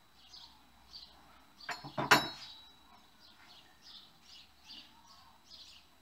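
A few sharp knocks close together about two seconds in, as the parts of a disassembled bicycle suspension fork are handled and laid on a wooden table. A bird chirps repeatedly and faintly throughout.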